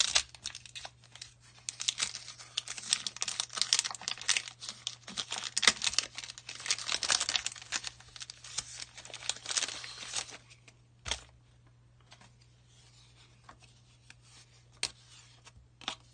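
Foil wrapper of a Pokémon booster pack being torn open and crinkled, a dense crackling rustle for about ten seconds, then a few light scattered clicks as it quietens.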